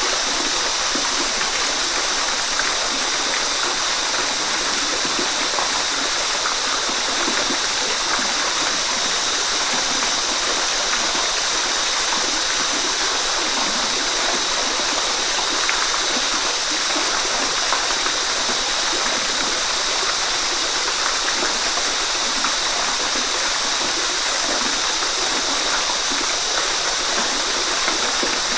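Waterfall: a steady, even rush of falling water, heavy on hiss, that does not change.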